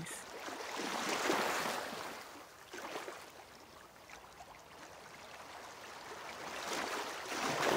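A person's slow, audible breathing in a held resting yoga pose: a soft rushing sound that swells about a second in, fades, and builds again near the end.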